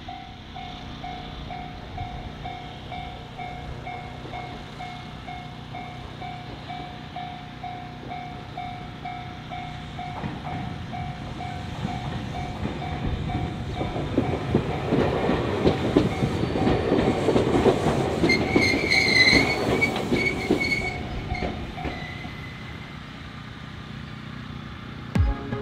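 Japanese level-crossing alarm ringing in a steady repeating pulse while a Fukushima Kotsu electric train passes. The train's rumble and wheel clatter build from about ten seconds in and peak after fifteen, with a brief high steady tone near the loudest point. The alarm stops a few seconds before the end.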